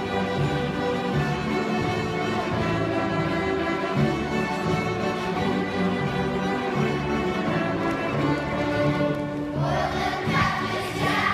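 Orchestral music with sustained bowed strings; a choir comes in about nine and a half seconds in.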